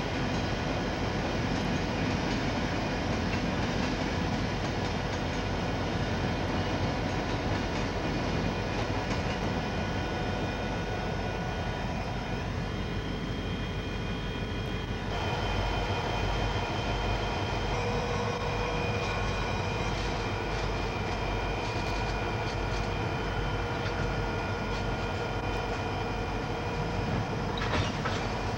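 Freight train passing: railcars rolling along the rails with steady droning tones. About halfway through it changes abruptly to CSX diesel-electric locomotives passing close by, a deeper throbbing engine rumble.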